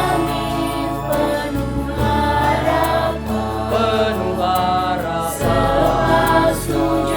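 School choir singing in parts, with a steady low accompaniment underneath.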